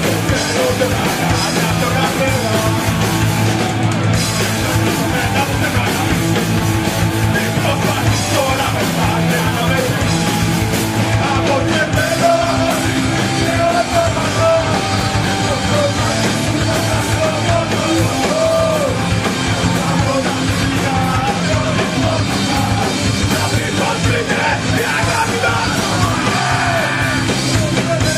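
Punk band playing live: loud, driving distorted rock with shouted vocals.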